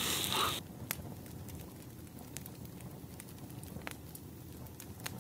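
Food sizzling in a frying pan cuts off abruptly about half a second in, leaving a low background hum with faint scattered crackles and ticks.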